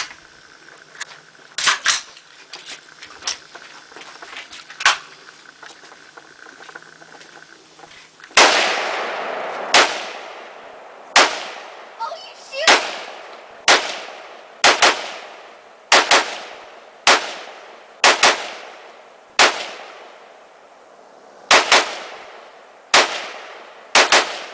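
Rock River Arms AR-15 rifle firing at a range. Fainter, scattered shots come first. From about eight seconds in come loud single shots, roughly one a second, each followed by a ringing echo.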